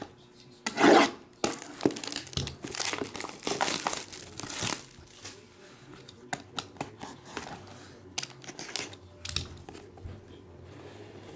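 Plastic shrink wrap being torn and crinkled off a sealed trading-card hobby box, with a loud rip about a second in and crackling for a few seconds after. Then scattered light clicks of the cardboard box being handled and opened.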